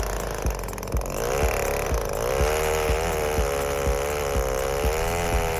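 105cc Neotec 8105 chainsaw running under load through a marri log in an Alaskan mill, its pitch wavering up and down as the cut goes. A short knock repeats at even spacing about twice a second.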